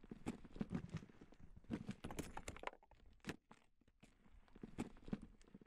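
Faint, irregular taps and crunches of small impacts, a few a second, with a pause in the middle, stopping just before the end.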